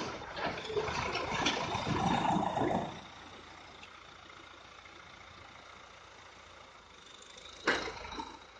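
A bulldozer's diesel engine working hard for about three seconds, then dropping to a quiet, steady running sound. A short, sharp, loud knock comes near the end.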